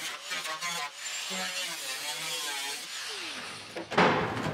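Angle grinder with a cut-off wheel cutting through rusted sheet steel of a car's rear fender, its whine wavering in pitch under load, then winding down. A sudden loud knock comes near the end.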